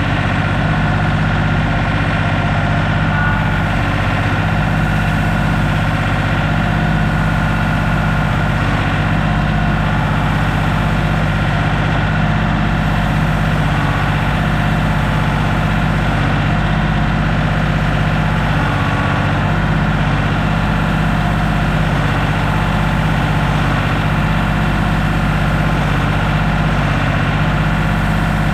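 A large engine idling steadily and evenly, with no revving or change in speed.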